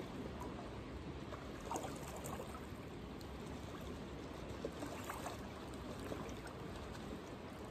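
Faint, steady wash of river water moving around a wading angler's legs, with a few light ticks.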